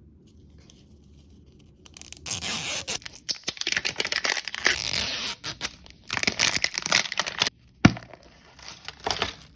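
Blind-bag packaging being torn open and crinkled by hand, in loud bursts starting about two seconds in, with a single sharp click near the end.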